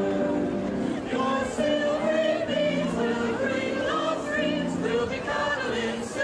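A group of adult amateur singers, mostly women, singing a song together as a choir, holding sustained notes and moving from note to note.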